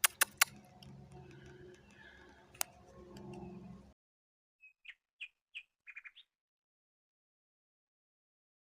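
A few sharp clicks over a low steady hum. The sound then cuts out, and a short run of about six quick bird chirps follows in the silence.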